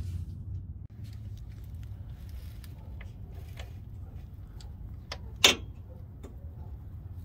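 Ratchet with a 13 mm socket clicking in scattered small ticks as it cracks loose the engine oil drain plug on a Duramax diesel's oil pan, with one sharper metallic click about five and a half seconds in, over a faint low hum.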